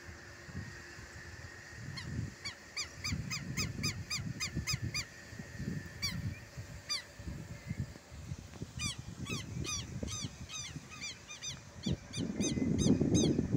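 Southern lapwing (quero-quero) calling: harsh, repeated calls in quick runs of about three a second, one run in the first few seconds and another through the second half. A low rumble lies underneath and swells near the end.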